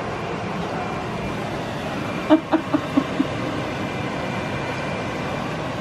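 Steady fan-like noise, with a few short, soft murmurs and clicks a little over two seconds in.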